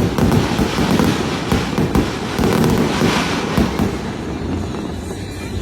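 Fireworks going off in rapid succession: a dense run of booms and crackling bursts that thins out and quietens somewhat near the end.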